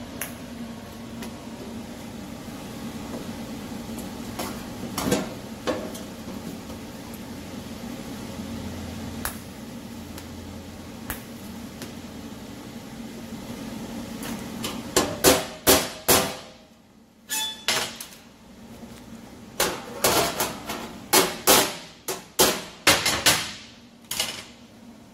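TIG welding on a sheet-steel inner fender: a steady low buzz with a few faint clicks. After about 15 s it gives way to a run of sharp metal knocks on the panel, about a dozen in two groups with a short pause between them.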